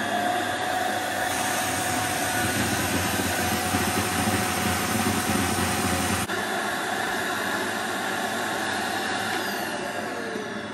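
Small vacuum cleaner running steadily with weak suction because it is clogged, its sound shifting abruptly about six seconds in.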